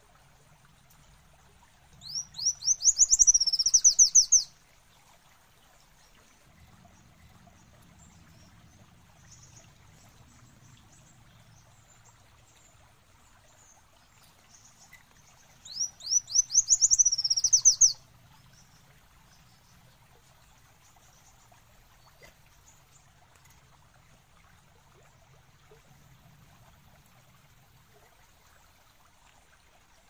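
Kolibri wulung sunbird song: a rapid trill of high, quickly rising notes lasting about two seconds, given twice about fourteen seconds apart, over a faint steady background noise.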